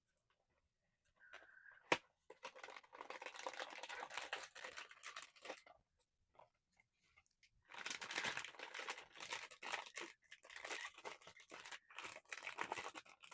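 Blind box packaging being torn open and crinkled by hand: a sharp click about two seconds in, then crackling and tearing of the wrapping in two long stretches with a short pause between them.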